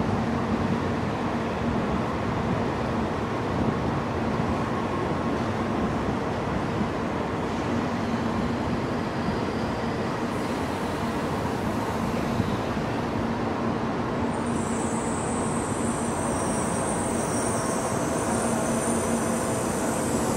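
Steady rushing noise and a low hum from a Shinkansen train standing at the platform with its equipment running. A thin high whine comes in about two-thirds of the way through.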